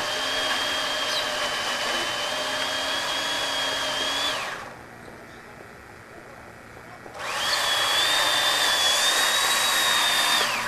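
Small electric chainsaw cutting into a tree trunk, its motor giving a steady high whine. It stops a little over four seconds in, starts again about three seconds later, and stops again near the end.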